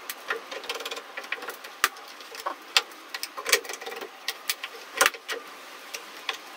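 A string of irregular light clicks and knocks from an aluminium rip fence and fence bar being shifted and set on a table saw's metal top, with a heavier knock about five seconds in.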